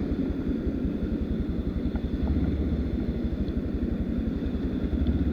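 Enduro dirt bike engine running at low revs, a steady fast pulsing that picks up a little about two seconds in.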